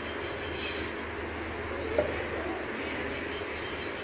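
Silicone pastry brush spreading oil over a non-stick tawa, over a steady background hiss, with one light tap on the pan about two seconds in.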